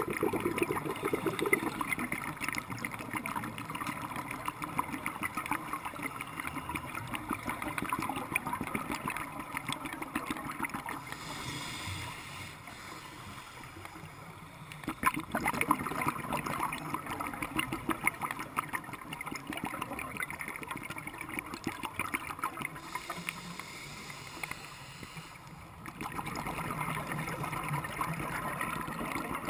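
Underwater sound of a scuba diver's exhaled bubbles gurgling and crackling past the camera housing. The bubbling comes in long stretches, broken twice by quieter pauses of a few seconds.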